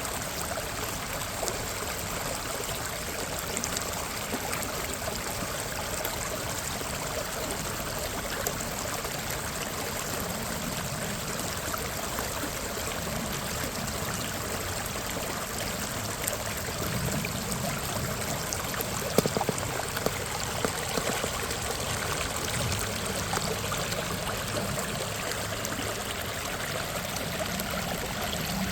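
Water of Minnehaha Creek rushing and splashing in a steady, even flow. A few brief sharp sounds stand out about two-thirds of the way in.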